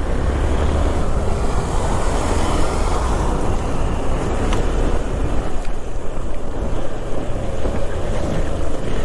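Riding a Hero Xpulse 200 4V motorcycle: wind rushing over the microphone, steady throughout, over the low rumble of its single-cylinder engine and the hiss of tyres on a wet road.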